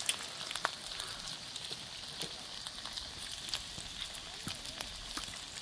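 Food sizzling in a hot pan or on a grill, a steady hiss with many small irregular crackles and pops.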